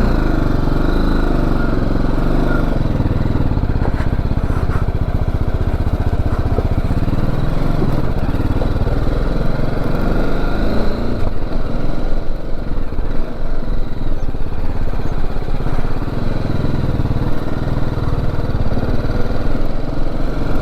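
BMW G310GS motorcycle's single-cylinder engine running under way, its note rising and falling as the rider works the throttle.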